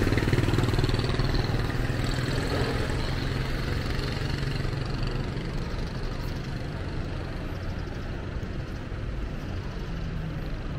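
A motor vehicle's engine running with a steady low hum, loudest at the start and fading over the first several seconds, as if moving away.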